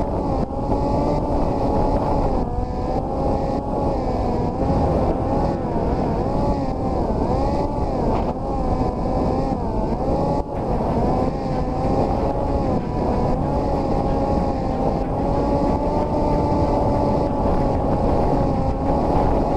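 Parrot Disco's electric motor and pusher propeller whining in flight, the pitch wavering up and down with throttle changes, over steady wind rush on the onboard microphone.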